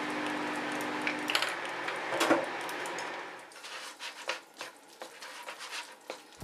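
Wooden chopsticks stirring Chapagetti black-bean cup noodles in a paper cup: a scraping rustle for the first few seconds, then a run of light clicks and taps as the chopsticks knock the cup while mixing.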